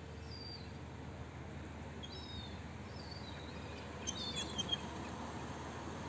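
Short, high chirping bird calls repeated every second or so, with a quicker cluster of them about four seconds in, over a steady low background rumble.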